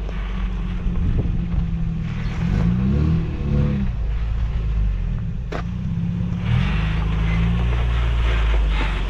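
Off-road truck engine working at low speed, revving up and down in short bursts as it crawls over rocks, with a single sharp knock about five and a half seconds in.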